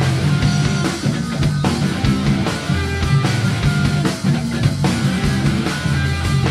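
Live rock band playing: electric guitars, bass guitar and a drum kit, loud and driving, with regular drum hits.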